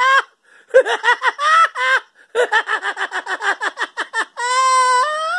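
A man laughing hard in rapid, high-pitched bursts, several a second, with short breaks between runs. Near the end the laughter gives way to a long held high note that steps up in pitch.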